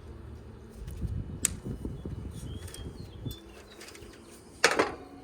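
Hands working the wiring and parts inside an air conditioner's outdoor condenser unit: rustling, scraping and light clicks, then one sharp snap near the end.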